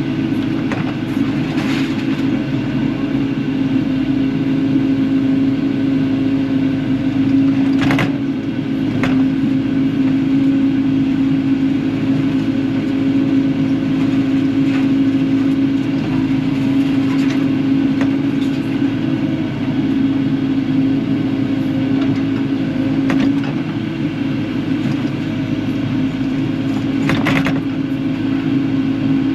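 Kubota KX080-4 excavator's diesel engine running steadily under work, with scattered clanks as the bucket digs through scrap metal and trash, the loudest about eight seconds in and again near the end.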